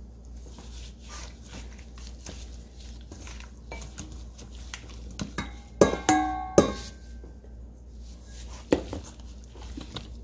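Hands in plastic gloves rubbing seasoning into raw chicken in a stainless steel mixing bowl, with soft rustling and light clicks. About six seconds in, three knocks strike the bowl and it rings, and another knock comes near the nine-second mark.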